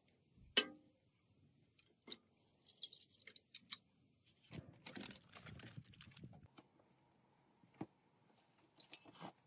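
Scattered clinks and taps of a metal spoon against an enamel soup pot and dishes, with one sharp knock about half a second in and a rustling, scraping stretch in the middle.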